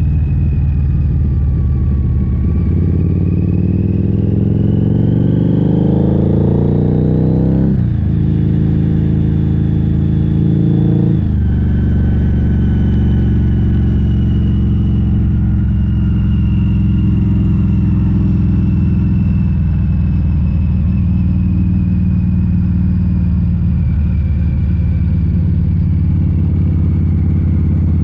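Harley-Davidson V-Rod's liquid-cooled V-twin accelerating, its pitch climbing for about five seconds, then dropping sharply at an upshift about eight seconds in and again at a second upshift about three seconds later. It then runs steadily at cruising speed, the pitch easing slowly down.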